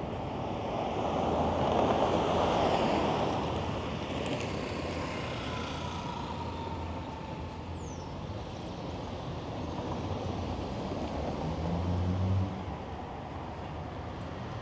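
City street traffic: a vehicle passes close by, loudest about two seconds in, followed by steady traffic noise with a low engine hum that swells and then cuts off suddenly near the end.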